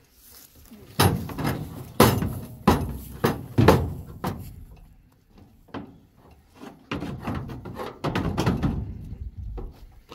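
A run of dull thuds and knocks at an irregular pace, about half a dozen sharp ones in the first few seconds, then a denser stretch of softer knocking near the end.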